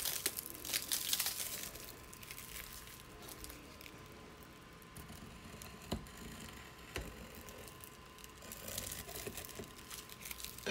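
Faint rustling, crinkling and scraping of a shipping box's packing being cut open with a leather skiving knife and pulled apart, with two light knocks around the middle.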